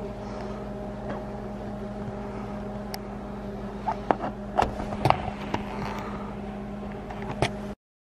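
A steady, pitched electrical appliance hum with a low rumble under it, and a few light clicks and knocks in the second half.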